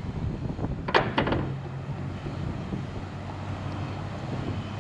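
A steady low engine hum, with a short run of light clicks about a second in.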